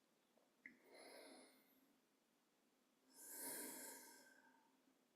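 A person breathing slowly through the nose close to the microphone: a soft breath about a second in, then a longer, louder breath starting about three seconds in, with a small click just before the first.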